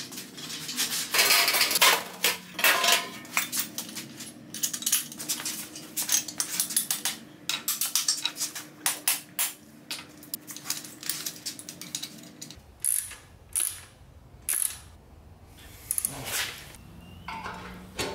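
Irregular metal clanks, clinks and rattles of steel parts being handled: a bare Miata subframe with its steering rack being carried and set against an LS V8 engine hanging from a hoist. A steady low hum sits underneath for the first twelve seconds or so.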